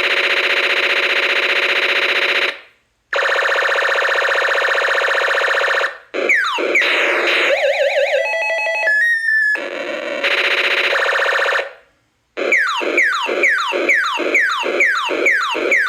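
1980s toy space laser gun's electronic sound effects: a steady buzzing tone, cut off twice, then warbling and stepped beeping tones, then a steady buzz again, and near the end rapid repeated falling laser 'pew' sweeps at about three a second.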